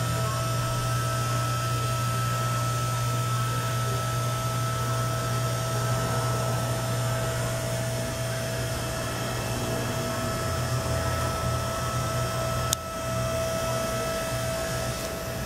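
Electric hydraulic pump motor of a Southworth scissor lift table running with a steady hum while the table rises. A single sharp click sounds about thirteen seconds in.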